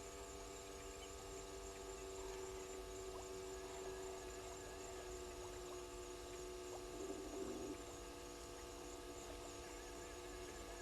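Faint steady electrical hum made of several thin tones, with scattered small clicks. A short wavering sound comes about seven seconds in.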